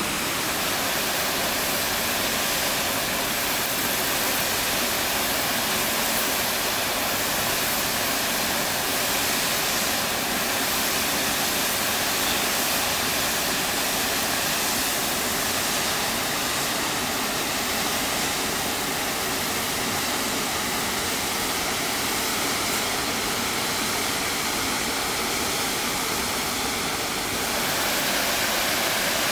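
Steady rushing of a waterfall and mountain stream, a constant even hiss of falling water.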